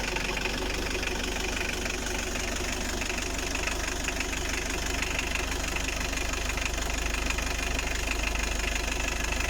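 Mitsubishi 4D56 2.5-litre four-cylinder diesel idling steadily. It has just started after its fuel line was hand-primed and the glow plugs preheated, curing its hard starting.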